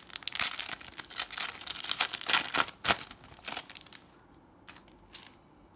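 Foil wrapper of a Panini Adrenalyn XL trading-card pack crinkling and tearing open, a dense crackle for about four seconds, then a couple of faint rustles as the cards are drawn out.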